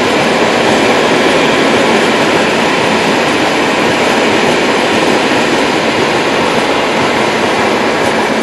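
Freight train tank wagons rolling past close by, a loud steady rush of steel wheels on rails.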